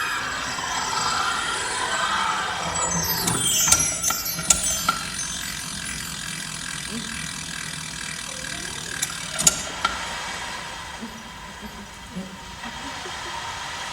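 Live foley sound effects made by hand with noisemaker props: ratchet-like mechanical clicking with sharp clicks and knocks, and several quick falling high-pitched sweeps about three to five seconds in.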